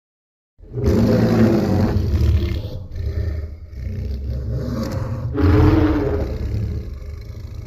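Giant-monster sound effect from the 2001 Godzilla film: a long, deep, rumbling roar that starts just under a second in and swells again about five seconds in.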